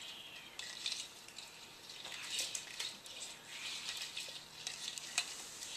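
Faint rustling and scattered light clicks of small objects being handled by children's hands.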